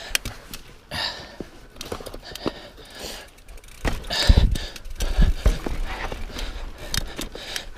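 A Transition Sentinel mountain bike riding over rough slickrock: tyres rolling and knocking on rock, with a steady run of clicks and rattles from the bike. Heavier thumps come around the middle as the wheels drop over rock steps.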